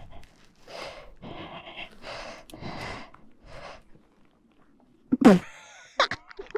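A person breathing hard in short, regular breaths, then a single loud grunt about five seconds in: the effort of crouching to lift a dropped dirt bike.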